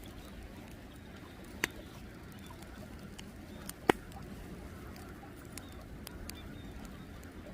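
Steady low outdoor rumble broken by two sharp clicks, about a second and a half in and again near four seconds, the second one louder.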